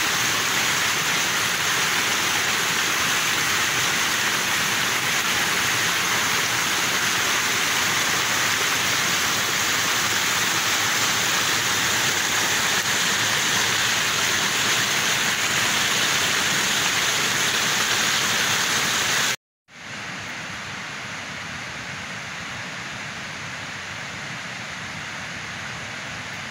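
Stream water rushing and splashing steadily over the rocks of a small waterfall. It cuts off abruptly about two-thirds of the way through, and a quieter steady hiss follows.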